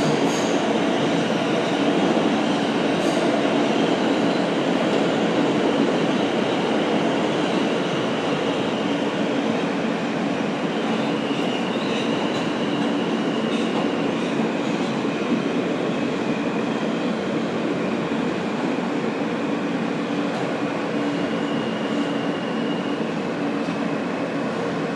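A steady, continuous rumble with a low hum. Faint high whining tones come and go in the second half.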